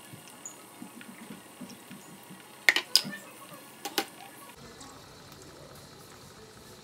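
Butter melting and bubbling in a stainless steel pan, with soft crackling throughout and a few sharp, louder pops near the middle.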